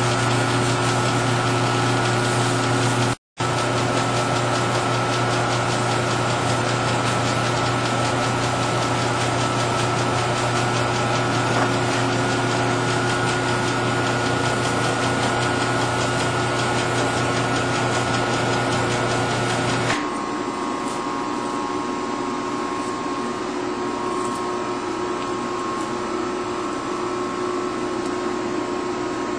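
Steady hum of workshop machinery. It cuts out for a moment about three seconds in and changes to a quieter, different hum about two-thirds of the way through.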